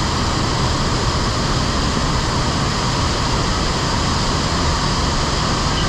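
Steady rush of water falling down a large man-made waterfall, over 12 metres high and 400 metres wide.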